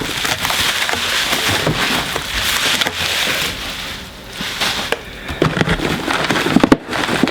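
Packing material in a cardboard shipping box rustling and crinkling as hands dig through it to pull out boxed Funko Pop figures, with many small crackles and clicks.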